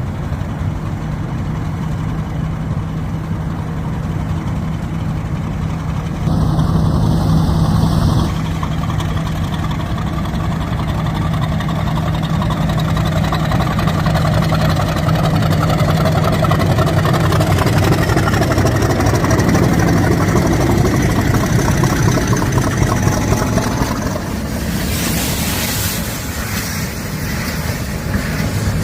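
Class 50 diesel locomotive's English Electric V16 engine working under power: a steady low drone, with a whine rising in pitch from about ten to twenty seconds in as it gets going. A brief louder burst comes about seven seconds in, and a hiss near the end.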